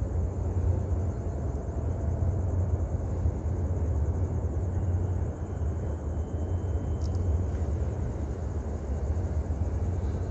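Low, steady rumble of a large container ship's engine as the vessel moves past under way.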